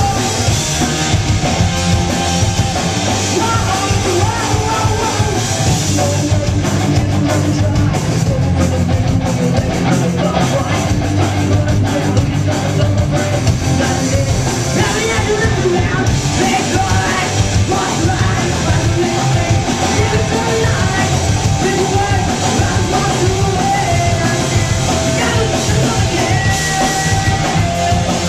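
A live rock band, with electric guitars, bass guitar and drums, playing a song with a vocalist singing, loud and steady throughout.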